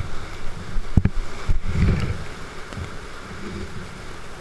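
Whitewater rapids rushing around a kayak, with water splashing onto the boat and the camera. A sharp knock about a second in and heavy splashes in the first two seconds, then a steadier rush.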